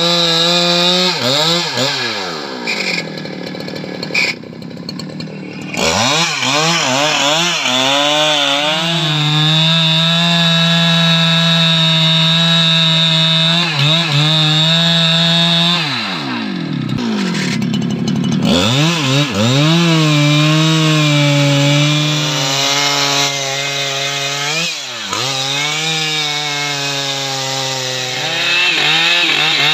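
Stihl MS 881 two-stroke chainsaw (121.6 cc) cutting into a thick tree trunk at full throttle. Several times the revs drop away and climb back up as the throttle is let off and squeezed again.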